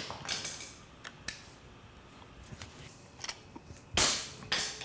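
Scattered sharp clicks and knocks, with one louder, longer burst of noise about four seconds in and another just before the end.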